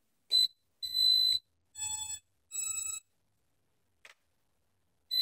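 A run of short electronic beeps from a JJRC X1 quadcopter's electronics: a short high beep and a longer one at the same pitch, then two tones at lower, different pitches, a faint click, and another high beep near the end.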